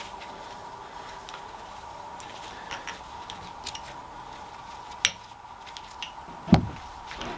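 Scattered sharp metallic clicks and clinks of hand tools working on a Ford 226 straight-six engine during teardown, with one heavier clank about six and a half seconds in, over a faint steady hum.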